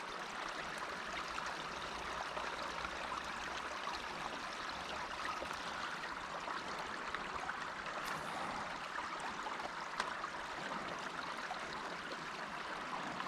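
Creek water running and trickling steadily.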